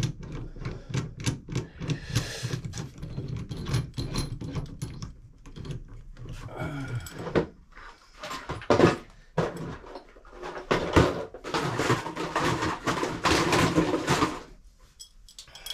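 Handling noises at a shower valve: a run of clicks and knocks, a few sharper knocks in the middle, then a few seconds of rustling near the end.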